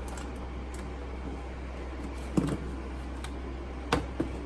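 Low steady hum with two short, light knocks, one a little past the middle and one near the end, as plastic storage boxes are handled in the freezer.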